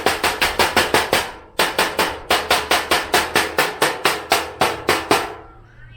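Rapid, evenly spaced strokes against the rusted metal computer case, about six a second, with a short break about a second and a half in, as the rust is worked off.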